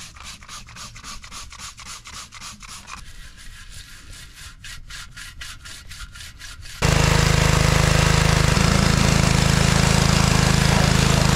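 A stiff bristle brush scrubbing a degreaser-soaked steel car subframe in quick back-and-forth strokes, about four a second. About seven seconds in, a gas-engine pressure washer comes on loud and steady, a low engine hum under the hiss of the water jet.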